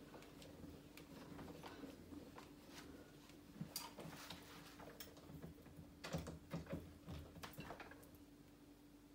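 Faint clicks and knocks from cranking a hand-turned jeweller's rolling mill and handling gold wire at its rollers, over a steady low hum. The knocks are loudest in a cluster about six to eight seconds in.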